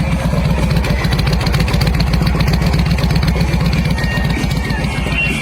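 Motorcycle engine running steadily, its rapid firing pulses even throughout.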